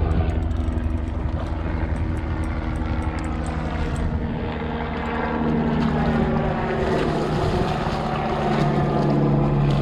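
Boat motor running steadily, growing louder and stronger from about five seconds in.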